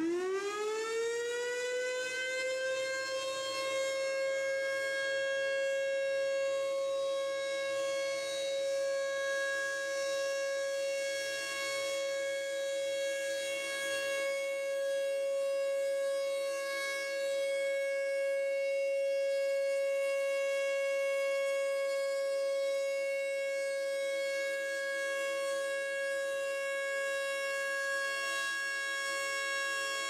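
Federal Sign & Signal Thunderbolt 1000 rotating outdoor warning siren sounding the steady alert tone. Its pitch finishes rising in the first couple of seconds and then holds one steady note, swelling and fading slightly as the horn turns.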